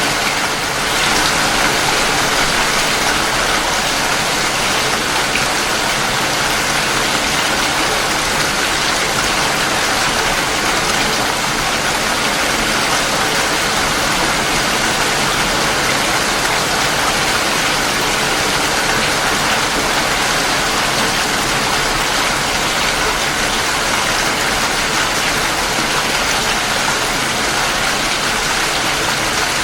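Steady rain falling, an even continuous patter and rush with no breaks.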